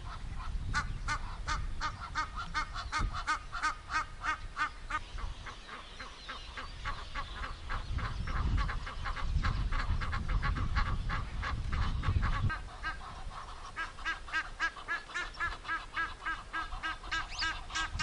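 Egyptian geese calling: a fast, continuous run of harsh honks, about four a second, with a low rumble underneath for most of it.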